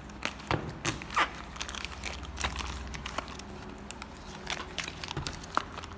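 Irregular light clicks, taps and rustling as small fuel-pump parts are handled on a workbench.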